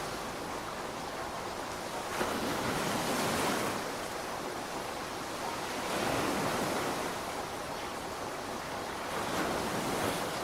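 Heavy rain falling in a steady hiss that swells louder three times, for a second or two each, like gusts driving the downpour.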